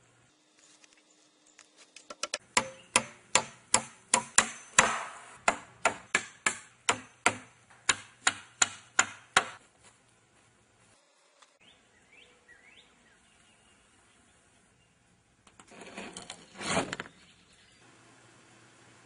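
Pneumatic nail gun firing nails into a wooden coop frame: about twenty sharp shots at roughly three a second, stopping about halfway through. A short rough rustling noise comes near the end.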